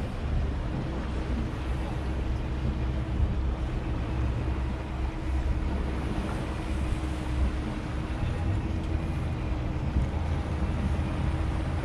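Boat engine running steadily at low speed on open water, a deep rumble mixed with wind and water noise, with a thin steady hum held through most of it.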